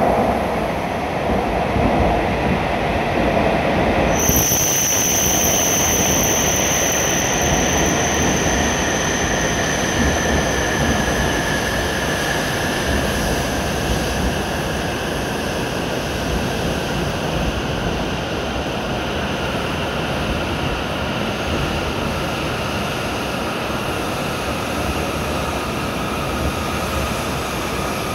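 E7 series Shinkansen train pulling into the platform and slowing, with a steady rushing noise. About four seconds in, a steady high-pitched tone comes in, and several whines slowly fall in pitch as the train slows.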